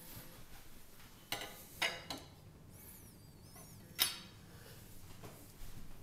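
Knives being handled on a granite countertop: three sharp clicks and knocks of blades and handles against the stone, then a louder knock about four seconds in.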